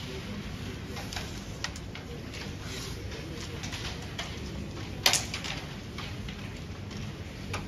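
Scattered sharp clicks of carrom pieces, with one loud clack about five seconds in, over a low steady hall hum.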